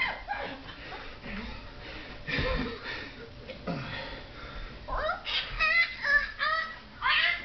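A man imitating a chimpanzee, really pathetic as chimp noises go: a quick run of short pitched hoots from about five seconds in, ending in a louder call near the end.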